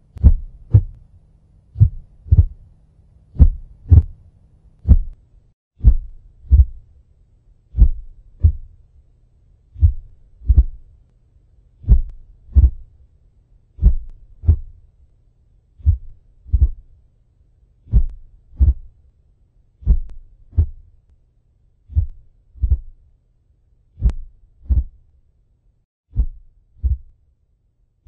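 Slow heartbeat sound effect: paired low thumps in a lub-dub pattern, a pair about every two seconds, keeping on at an even pace.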